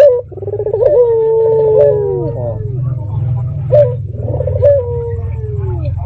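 Puter dove cooing: a long held coo that falls away at its end, then two short accented notes and another long falling coo, opening with a sharp click. A steady low hum and a faint, evenly pulsing high trill run underneath.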